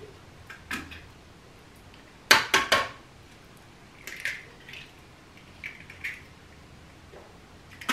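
Eggs being cracked on the rim of a blender jar: three sharp knocks in quick succession about two seconds in, then softer crackles and clicks as the shells are pulled apart over the jar, and another knock near the end.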